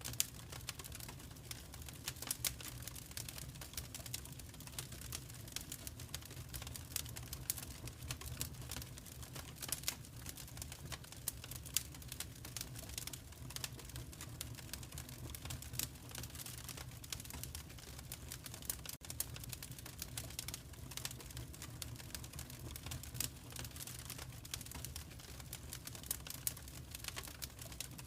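Wood fire crackling in a fireplace: a dense run of small irregular pops and snaps over a low steady rumble.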